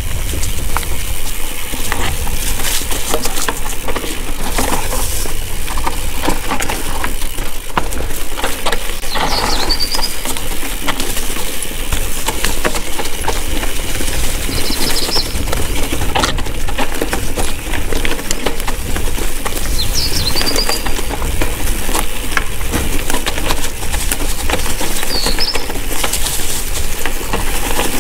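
Mountain bike descending a rocky singletrack: a continuous clatter and rattle as the tyres, frame and chain hit stones, over a steady low rumble. A few brief high chirps cut through now and then.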